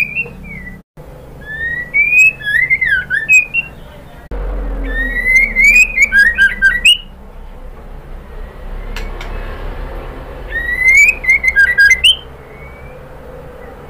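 White-rumped shama (murai batu) singing three loud bursts of song. Each is a rising clear whistle that breaks into quick tumbling notes and sharp high clicks, about two seconds long. The bursts come near the start, in the middle and near the end, with a steady background hum between them.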